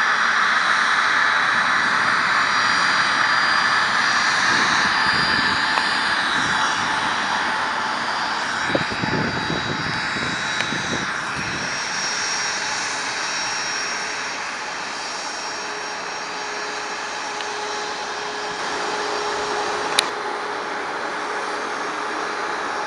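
A passing aircraft's jet engines: a steady loud rush with a high whine that drops in pitch as the plane goes by, slowly fading. A single sharp click comes near the end.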